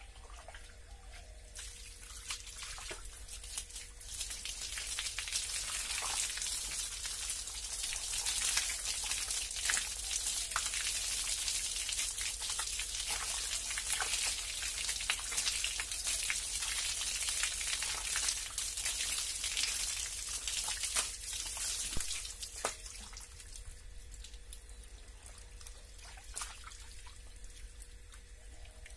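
Water from a hose pouring over a person's head and body and splashing onto the floor. It builds up over the first few seconds, runs steadily with scattered splats, and tails off a few seconds before the end.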